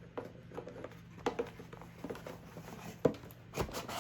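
Hands unpacking a box: scattered light taps and rustles, with the sharpest tap about three seconds in and a low thump just after.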